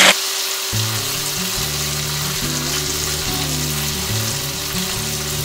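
Taro root (arbi) pieces deep-frying in hot oil, a steady sizzle, still browning on the first side. Soft background music plays underneath.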